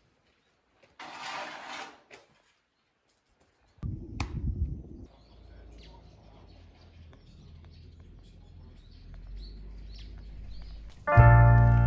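Faint outdoor ambience with small bird chirps, broken by a short rustle about a second in and a brief low rumble with a sharp click around four seconds. Piano music starts near the end.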